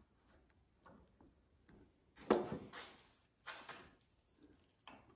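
Light metal clicks and clanks of channel-lock pliers being handled and fitted onto a brass oxygen regulator held in a vise: two louder clicks about a second apart, with fainter ticks around them.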